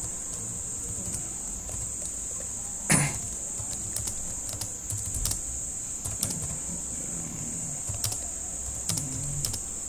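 Computer keyboard being typed on in scattered keystrokes, with one louder click about three seconds in, over a steady high-pitched whine.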